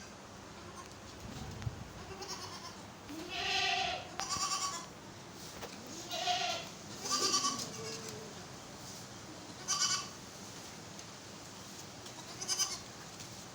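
Goats bleating, about six separate calls, some coming in quick pairs.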